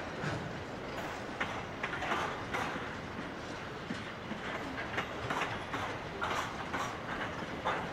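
Long freight train rolling slowly past, with its wagon wheels clicking and clanking irregularly on the rails over a steady rumble.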